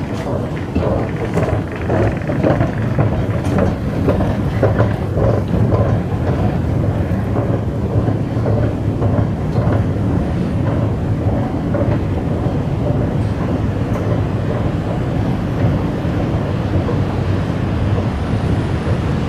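Steady low rumble of an underground MRT station, heard while riding an escalator up, with irregular footstep taps over the first several seconds that then give way to the even drone.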